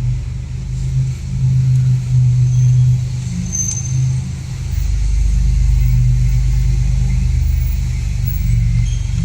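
Car engine running with a steady low rumble, growing a little heavier about halfway through.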